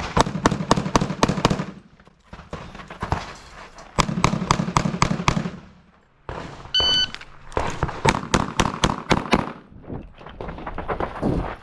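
Rapid strings of pistol shots fired in quick succession during a USPSA stage, several shots a second, broken by short pauses between strings. A shot timer beeps once about seven seconds in.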